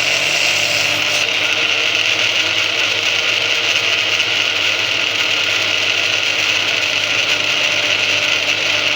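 Electric kitchen blender running steadily, blending a thick hazelnut-chocolate spread. The motor cuts off abruptly at the very end.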